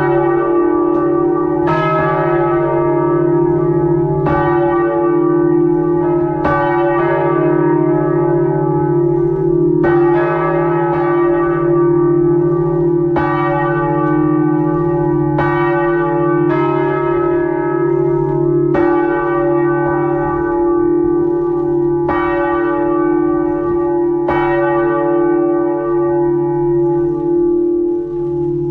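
Church bells swinging in full peal inside the belfry, heard close up from above. Clapper strikes from several bells overlap at uneven intervals of one to two and a half seconds, over a loud, steady hum of the bells' long-ringing tones.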